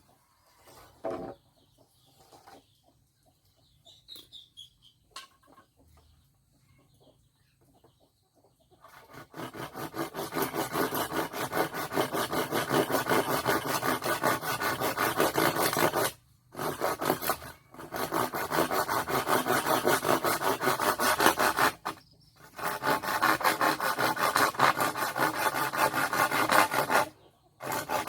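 Quick, repeated rasping strokes of a hand tool on wood or metal, starting about a third of the way in and stopping briefly three or four times; quiet before that.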